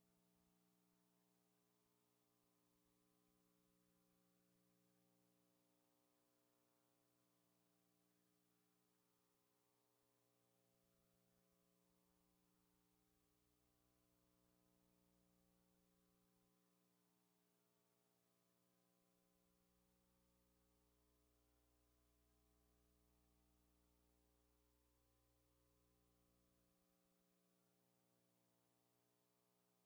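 Near silence with a faint, steady electrical mains hum.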